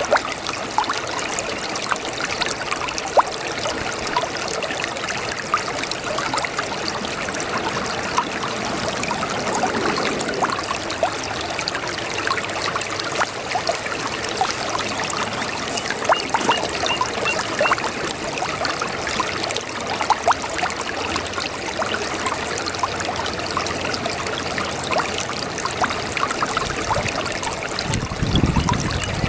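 A babbling brook: a steady rush of trickling water with small splashes throughout. A deeper gurgle swells briefly near the end.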